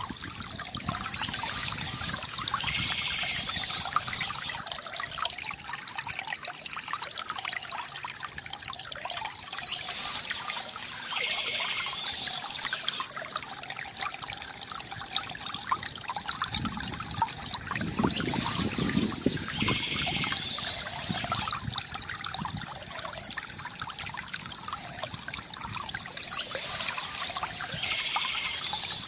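A stream trickling and babbling over stones, a steady water sound with a brighter patch that comes back about every eight or nine seconds.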